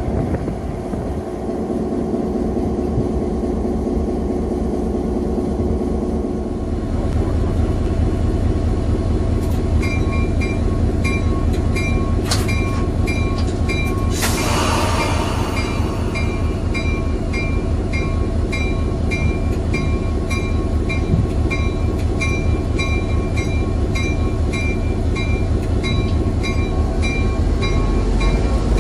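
EMD CF7 locomotive's 16-cylinder 567 diesel engine running steadily, heard from inside the cab from about seven seconds in. From about ten seconds a pitched metallic ding repeats roughly one and a half times a second, and a short hiss comes about fourteen seconds in.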